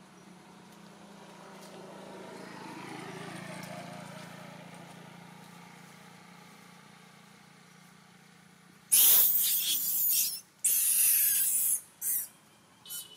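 A vehicle passing on a nearby road, swelling and then fading over several seconds. About nine seconds in come two loud, harsh hissing bursts of about a second each, then a few shorter ones.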